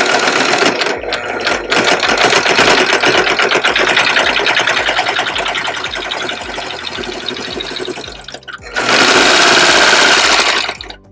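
Simplicity SB3734T overlock serger stitching a long seam at speed, with brief slowdowns. After a short pause about eight and a half seconds in, it runs louder for about two seconds as the fabric comes free and it chains off a thread tail, then stops abruptly.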